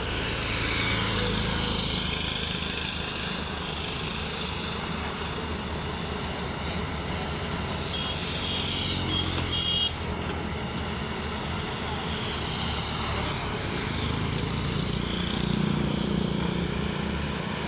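Excavator's diesel engine running under load, swelling louder twice as it works. A short run of high-pitched tones sounds about eight seconds in.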